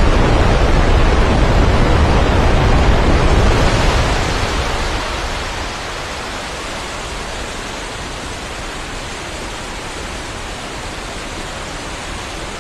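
The Velo de Novia waterfall at El Chiflón: a steady roar of falling water, loudest and deepest for the first four seconds or so, then easing slightly and holding steady.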